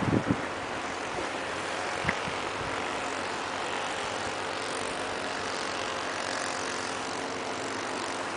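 A distant engine droning steadily under a hiss of wind and surf, with a few low thumps of wind or handling on the microphone at the start and a single click about two seconds in.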